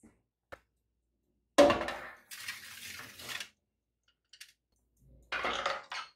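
A metal baking tray clanks onto the wire rack of a countertop electric oven and scrapes and rattles as it is pushed in, with another clatter near the end as the oven door is shut.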